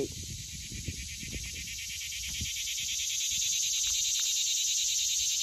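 Insect chorus: a steady, pulsing high-pitched trill that swells louder about two to three seconds in. Faint rustles and taps from handling the plant and stake sit underneath.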